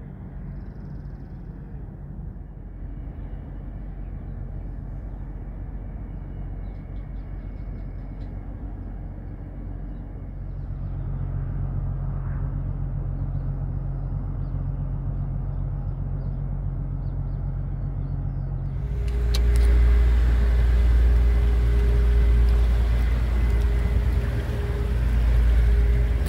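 Steady low engine drone of boats under way on the water, growing stronger about eleven seconds in. About nineteen seconds in it jumps to a much louder rumble with a steady hum and a wide hiss of wind and water as a towed barge passes close.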